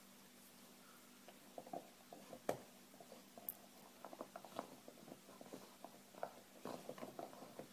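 Golden retriever gnawing on a chew bone: quiet, scattered clicks and crunches, with one sharper click about two and a half seconds in.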